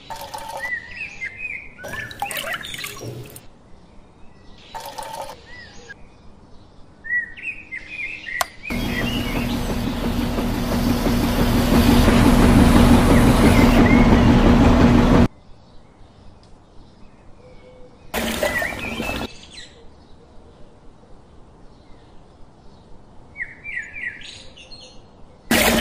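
Small electric motor of a miniature DIY concrete mixer spinning its drum for about six seconds, a steady hum that builds over a few seconds and then cuts off suddenly. Birds chirp now and then before and after, with a few short rustles of handling.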